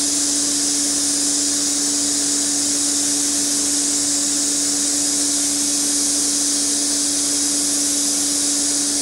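DC TIG welding arc from a Miller Dynasty 210DX burning steadily on stainless steel at about 120 amps: an even, high hiss with a constant hum underneath.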